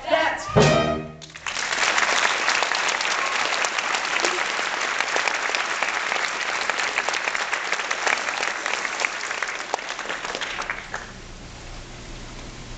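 A musical number's accompaniment ends on a final chord about a second in. Audience applause follows and dies down near the end.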